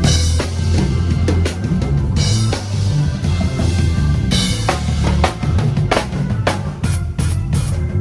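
Loud music driven by a full drum kit, with bass drum, snare and cymbal crashes about every two seconds over a steady bass line.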